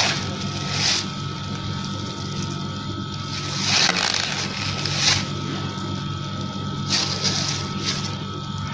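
Clear plastic packaging crinkling several times as a squishy toy is squeezed through its wrapper, over a steady low hum.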